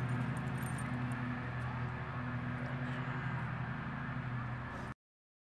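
Steady low motor hum over outdoor background noise, cutting off suddenly about five seconds in.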